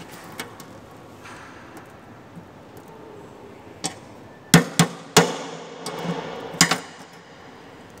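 Sharp knocks and clicks from hands and tools working at an open steel electrical cabinet: a few scattered light clicks, then three strong knocks in quick succession about halfway through, the last ringing briefly, and another strong knock pair near the end.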